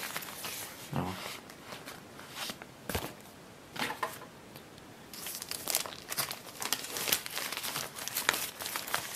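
Paper and plastic wrapping crinkling and rustling as a large folded paper poster is handled and folded: scattered crackles at first with one sharp click about three seconds in, then dense, busy crinkling from about halfway on.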